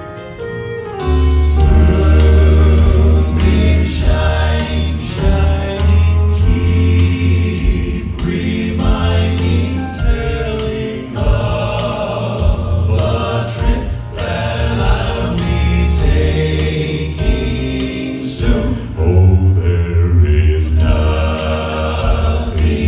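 Southern gospel male quartet singing live in close four-part harmony over instrumental accompaniment with a strong bass line. The full sound comes in about a second in.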